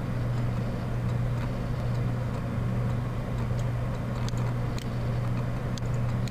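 Steady low electrical hum with hiss on the recording line, and a few faint clicks of a computer mouse in the second half.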